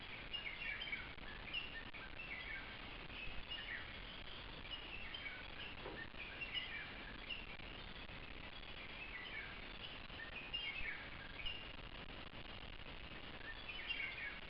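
Birds calling in a steady outdoor ambience: short falling chirp phrases repeat about every second, over a constant low background hiss.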